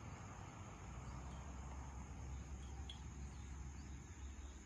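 Steady high-pitched chirring of crickets over a steady low background rumble.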